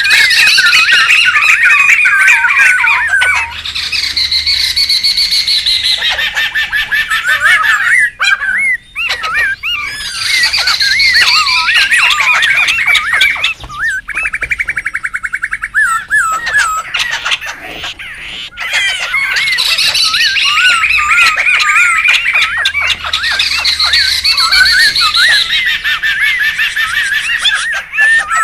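Laughingthrushes (poksay) calling in a loud, noisy chorus: rapid chattering, warbling and squawking calls, with a fast, even trill about halfway through.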